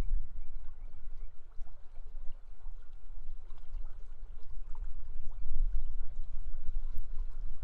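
River water flowing and rushing steadily, with a strong, fluctuating low rumble underneath.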